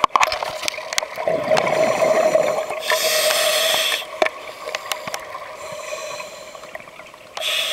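A scuba diver's regulator, heard underwater: a rush of exhaled bubbles about a second in, then a hissing inhalation at around three seconds and another short one near the end. A faint steady hum and scattered sharp clicks run underneath.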